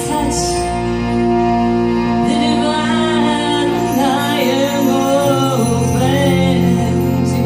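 Live kirtan band playing: a woman's voice sings a mantra melody over a steady instrumental drone and changing bass notes, the singing entering about two seconds in. A brief cymbal wash sounds near the start.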